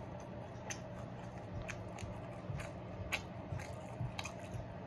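Close-up chewing of crunchy fried sesame chicken, a string of irregular small crunches and mouth clicks over a steady low hum.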